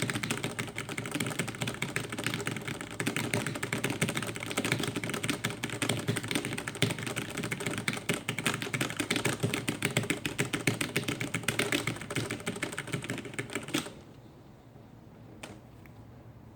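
Fast, continuous typing on a computer keyboard, a dense run of rapid keystrokes that stops abruptly about 14 seconds in, followed by a couple of single key clicks.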